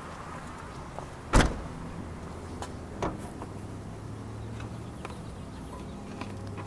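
A minivan's door slams shut with one loud thud about a second in, followed by a lighter knock. A low steady hum then sets in.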